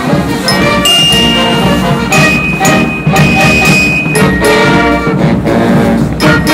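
Marching band playing a tune on saxophones and brass, with long held notes.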